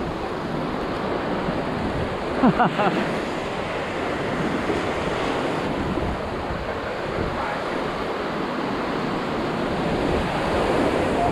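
Ocean surf breaking and washing up the sand in a steady rush.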